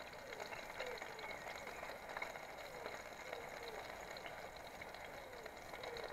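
Burgers frying in a metal mess tin over an alcohol stove: a faint, steady sizzle with small scattered crackles.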